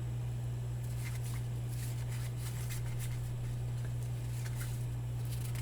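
Faint, short swishes of baseball cards being slid and flipped through by hand, a few times, over a steady low hum.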